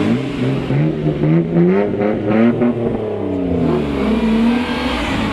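Car engines revving: their pitch rises and falls again and again, several at once.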